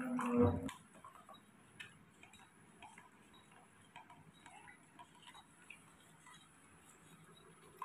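Faint, irregular soft clicks from a newborn baby monkey sucking and mouthing at its toy. A brief louder held tone with a low thump comes in the first second.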